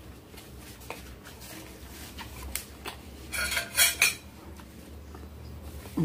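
Metal spoon clinking and scraping against a glass baking dish of ravioli in white sauce: a few light clicks, then a louder run of scrapes a little past halfway.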